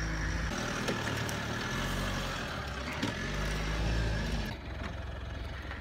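Mitsubishi Pajero Sport's engine running at low, steady revs as the SUV crawls over a steep grassy slope, turning quieter about four and a half seconds in.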